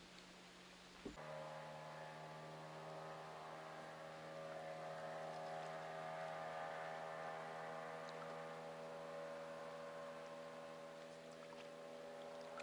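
Motorboat engine running steadily on the river, a faint even drone that starts after a click about a second in and grows a little louder toward the middle.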